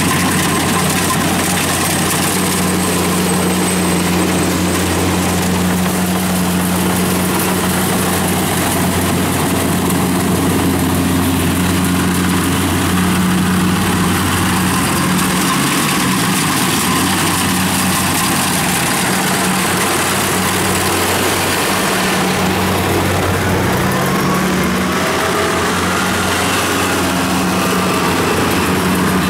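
Rice combine harvester's diesel engine running steadily under load while cutting and threshing rice, a continuous low drone with a faint rising whine past the middle.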